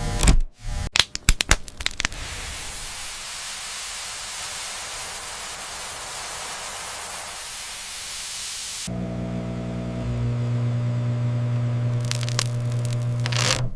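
A few clicks, then a steady hiss, then about nine seconds in a microwave oven's steady electrical hum starts and runs until it cuts off suddenly near the end.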